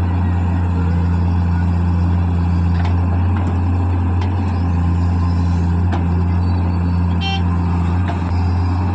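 Heavy vehicle's diesel engine running steadily with a constant low hum. A brief high beep sounds about seven seconds in.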